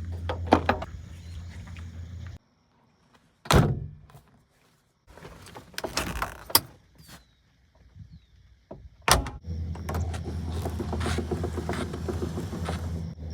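1962 Porsche 356B's air-cooled flat-four engine idling steadily, then stopping abruptly. A heavy door thunk follows, then clicks and rattles of handling the car. A second sharp thunk comes before the engine is heard idling again.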